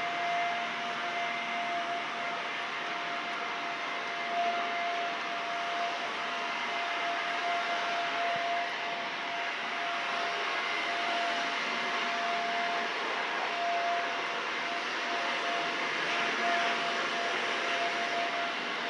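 Steady machine noise: an even whirring hiss with a steady mid-pitched whine over it.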